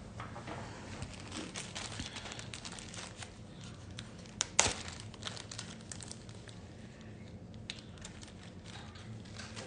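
Plastic zip-top bag of embroidery floss skeins being handled and rummaged through, crinkling and crackling throughout, with a couple of sharper clicks about halfway through.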